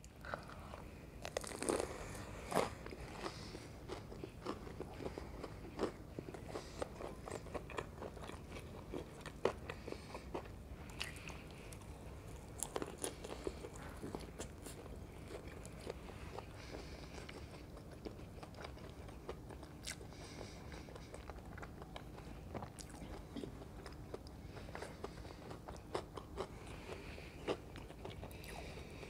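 Close-miked eating of crispy fried gram-flour pakoras: irregular crisp crunches and chewing, with the loudest bites in the first few seconds.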